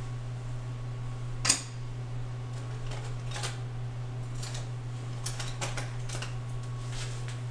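Graphite pencils being picked out and handled: one sharp click about a second and a half in, then scattered light clicks and taps, over a steady low hum.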